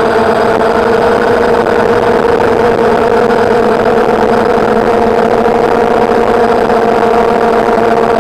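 DJI Phantom quadcopter's electric motors and propellers humming loud and steady at an unchanging pitch, picked up by the camera mounted on the drone.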